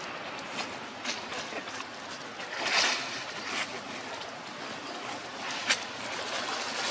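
Steady outdoor hiss with a few short rustles and clicks; the loudest is a brief rustle about three seconds in.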